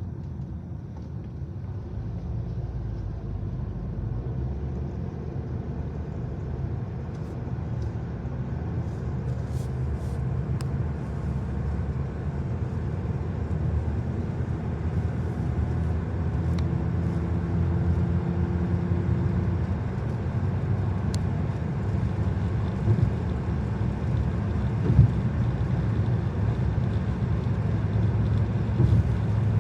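A train rolling past: a steady low rumble that slowly grows louder, with a few sharp knocks in the second half.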